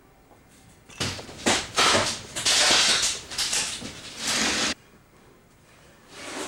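Cordless drill boring into an overhead timber joist, a run of grinding bursts of several seconds, then a short burst near the end.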